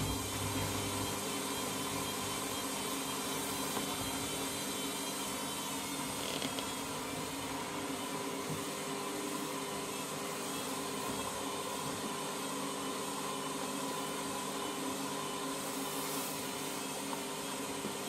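Candy front-loading washing machine running a synthetics wash, its drum motor giving a steady whirring hum with a few faint clicks.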